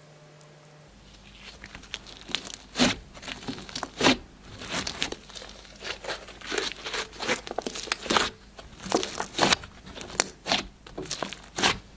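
Glossy slime being squished and stretched by hand, giving irregular sticky crackles and pops that start about two seconds in.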